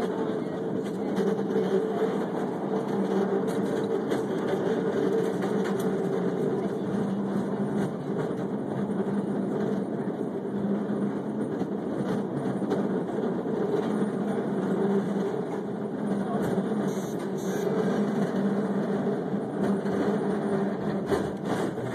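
San Francisco cable car running along its rails: a steady rumble of the wheels and the underground haul cable, with a constant low hum throughout.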